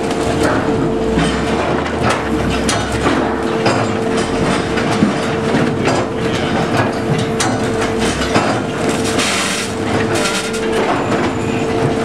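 Sawmill log-sorting conveyor running: chains and steel cradles clank and rattle, with frequent knocks of logs against steel, over a steady machine hum that stops near the end.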